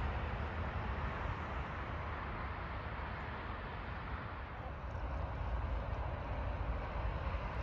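Distant freight train rolling along the track: a steady rumble and rail noise that dies down slightly about four seconds in, then picks up again.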